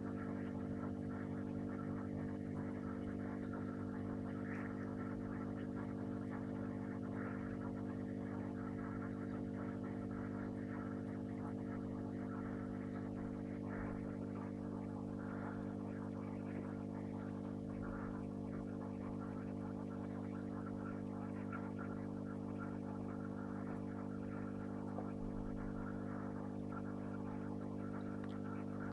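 Steady hum of running aquarium equipment, several fixed tones held throughout, with a faint irregular crackle above it.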